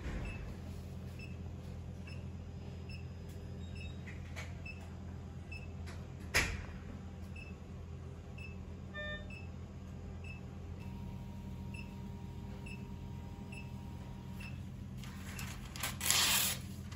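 Room tone with a steady low hum and faint regular ticking about twice a second. A single sharp click comes about six seconds in, a short beep a few seconds later, and a brief burst of rustling noise near the end.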